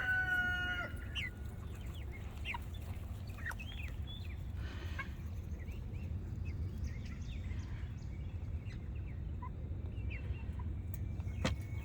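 Chickens clucking, with many short scattered calls, over a steady low rumble. A held pitched call trails off about a second in, and a sharp click sounds near the end.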